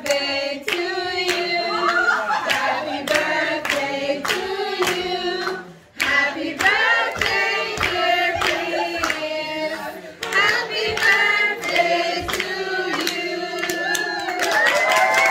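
A group of people singing together, with steady rhythmic hand clapping about twice a second. The singing and clapping break off briefly about six seconds in.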